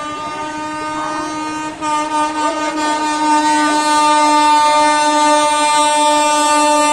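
Indian Railways train horn sounding in one long, unbroken blast that gets louder about two seconds in.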